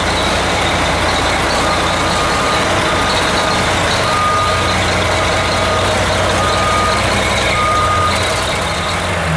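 Turbocharged diesel engine of a drag racing truck running steadily at a constant level. From about two seconds in, a short electronic beep sounds roughly once a second over the engine.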